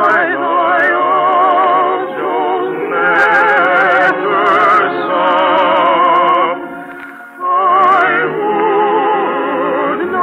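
Music from an old radio broadcast: sustained melody lines with heavy vibrato, in an operatic style, dipping briefly about seven seconds in before swelling again.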